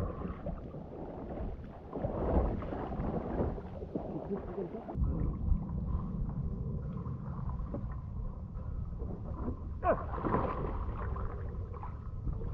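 Water splashing and sloshing around a kayak as the paddler scoops the water with bare hands, then takes a paddle and strokes. The splashes surge louder about two seconds in and again near ten seconds.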